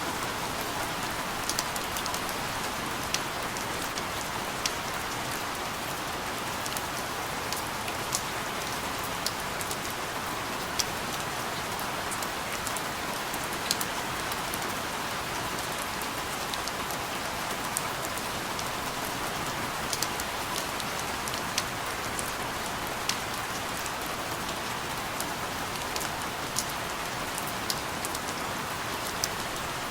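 Steady rain falling, an even hiss with frequent sharp drip ticks scattered through it.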